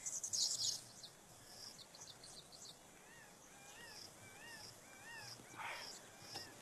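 Crickets chirping in short, evenly repeated bursts, with a bird giving a series of about five rising-and-falling call notes around the middle. A brief louder high hiss comes right at the start.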